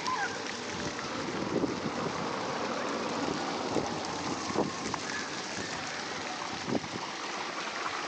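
Steady splashing of ground-level fountain jets, water falling onto paving stones.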